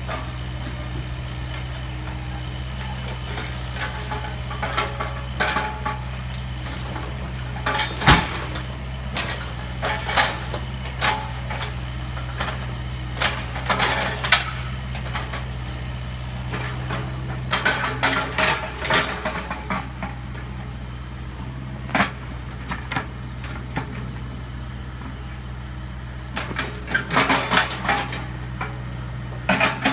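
Mini excavator's diesel engine running steadily while its bucket works demolition debris, with scattered knocks, cracks and clattering of broken wood and siding. The loudest is one sharp crack about eight seconds in.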